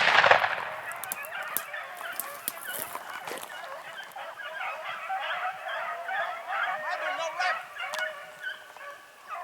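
A pack of beagles baying on a rabbit, many overlapping wavering calls throughout. A single loud bang right at the start.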